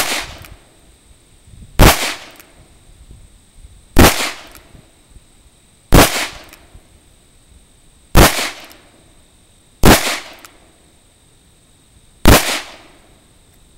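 Taurus eight-shot .357 Magnum revolver fired seven times in slow, aimed succession, about two seconds between shots, each a sharp report with a short echo.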